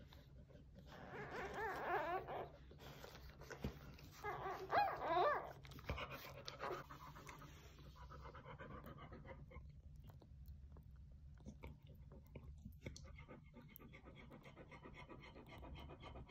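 Newborn English springer spaniel puppies crying: two short, high, wavering squeals about one and four seconds in, the second louder. Softer rapid rhythmic sounds follow.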